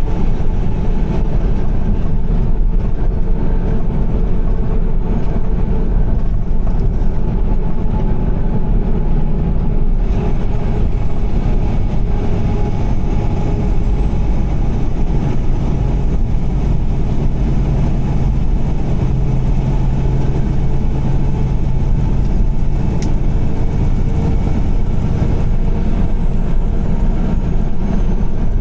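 Car travelling at highway speed in heavy rain: a steady low rumble of tyres on the wet road with engine hum.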